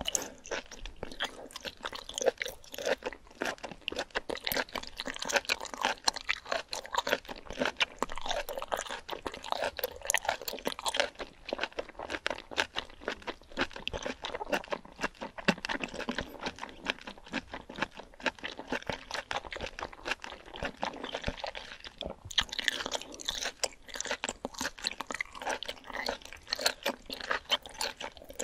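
Close-miked chewing of whole octopus tentacles in red sauce: a steady run of wet, sticky chewing clicks and mouth sounds, with a brief pause about three-quarters of the way through.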